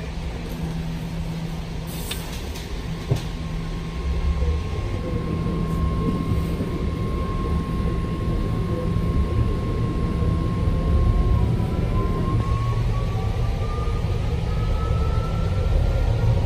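BART Fleet of the Future train pulling away and gathering speed, heard from inside the car: a low rumble that grows louder, with a steady electric whine that starts rising in pitch about two-thirds of the way through as the train accelerates. Two light clicks are heard a few seconds in.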